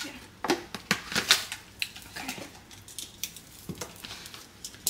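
Metal kitchen tongs clicking and knocking against a plastic container as marinated lamb chops are lifted out, a string of irregular sharp clicks and clatters, the loudest about a second in.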